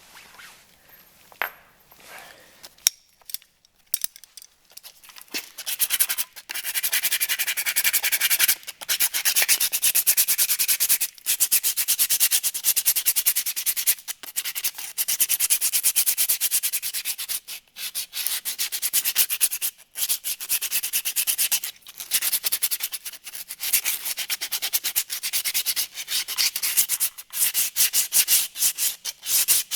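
Rapid back-and-forth abrasive scrubbing by hand, such as sandpaper or a wire brush on metal. It starts about five seconds in, after a few light clicks, and comes in spells of a few seconds with short pauses.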